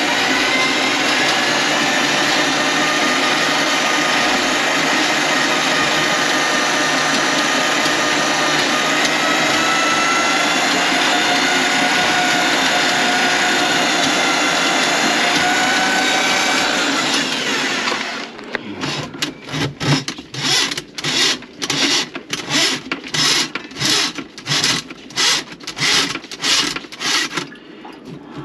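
An electric motor running steadily with a slightly wavering whine, cutting off suddenly about 18 seconds in. A rhythmic rubbing stroke follows, about two a second.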